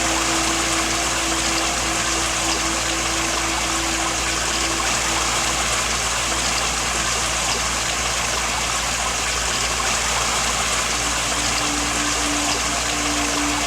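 Steady rush of falling water from a waterfall, with a soft, slow melody of long held notes over it; one low note fades out about six seconds in and another begins near the end.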